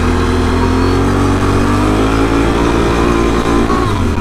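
Can-Am Renegade 1000 ATV's V-twin engine running while riding, its pitch climbing slowly through the middle and dropping back near the end.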